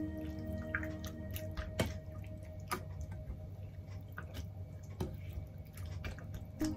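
Wet squishing and squelching of hands kneading raw chicken and liver in a soy-sauce-and-sake marinade in a stainless steel bowl, with irregular short squelches and clicks.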